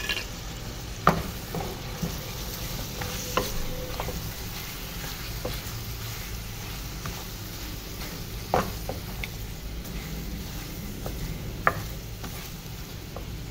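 A wooden spoon stirs mutton, tomatoes and ground spices as they sizzle in an aluminium pot. A few sharp knocks sound as the spoon hits the pot, the loudest about a second in and later around the middle. This is the bhuna stage of a mutton salan, where the meat is fried with the masala.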